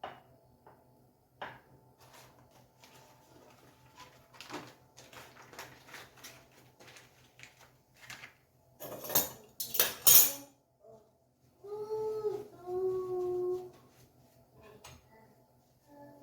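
Kitchen containers and utensils being handled, with small clinks and knocks, then a loud scraping rustle twice about nine to ten seconds in. Near the end comes a brief pitched call in two parts.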